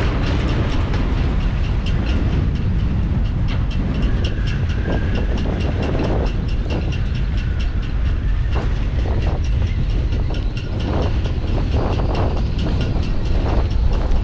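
Strong wind buffeting the microphone as a heavy low rumble, with a fast steady mechanical ticking about four times a second and a few knocks in the second half.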